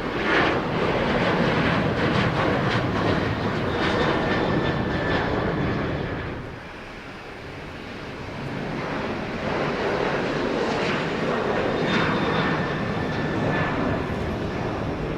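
Jet airliner engines running loud, with a steady high turbine whine over a broad rush. The noise dips for a moment about six seconds in, then swells again.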